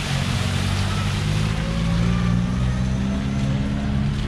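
Citroën Traction Avant driving slowly through a shallow ford, its engine running at a steady low note while the tyres throw up splashing water.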